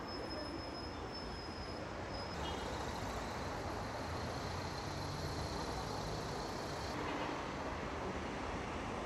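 City street traffic: buses and cars running and passing in a steady rumbling wash of noise, with a thin high whine over it for the first couple of seconds.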